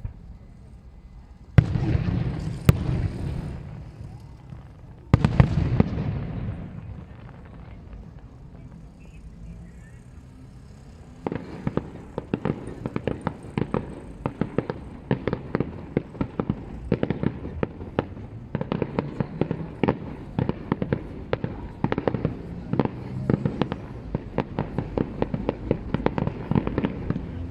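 Fireworks display: two heavy shell bursts, about two and five seconds in, each followed by a rolling rumble that fades, then from about eleven seconds on a dense crackle of many sharp pops.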